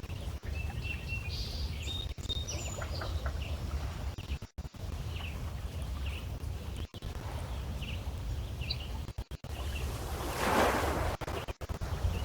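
Small lake waves lapping against shoreline stones, with one louder wash of splashing about ten seconds in. Birds chirp now and then, over a steady low rumble of wind on the microphone.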